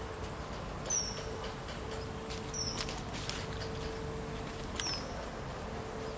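Outdoor ambience by a pond: a bird gives three short, high, falling chirps over a steady faint hum, with a few sharp clicks as a caught tilapia is handled and unhooked.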